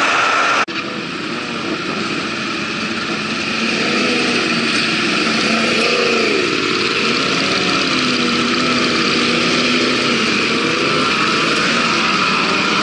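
Opens for a moment on a motorcycle at road speed, then cuts about half a second in to several sport motorcycles idling close by, their engines revved up and down a few times in the middle.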